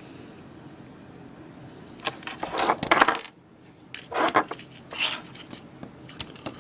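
Wire end being stripped of about an inch of insulation with a hand stripping tool: three short bursts of clicking and scraping, starting about two seconds in.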